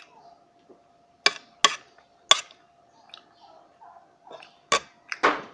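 Eating sounds: about six sharp clicks and taps of utensils against dishes, in two groups of three, over a faint steady hum.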